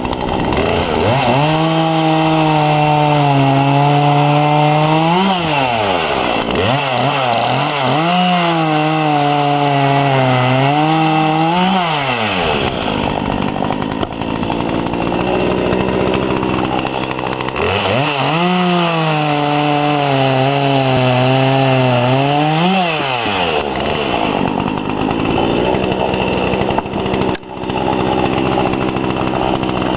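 Two-stroke chainsaw cutting through firewood logs, three cuts: the engine's pitch sags under load in each cut and climbs back as the cut finishes. It runs at high revs between the cuts.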